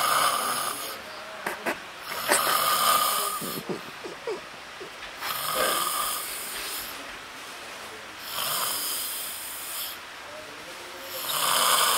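A sleeping person snoring, about five loud snores spaced roughly three seconds apart, with quieter breathing in between.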